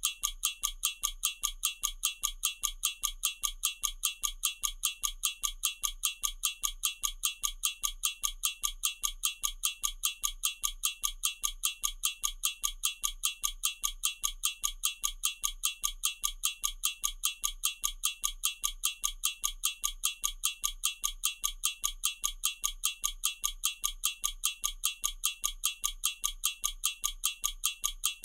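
Heuer ref. 502.907 mechanical stopwatch running, its movement ticking evenly at about five ticks a second.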